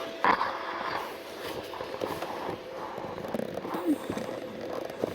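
Handling noise of hands working down beside a car seat: a sharper knock about a quarter second in, then scattered small clicks, taps and rustling.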